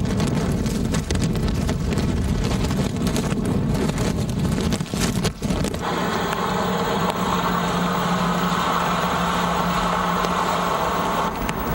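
Storm wind rumbling and buffeting on the microphone, then, about six seconds in, a vehicle driving through floodwater, its engine running with a steady hum over the swish of water from the tyres.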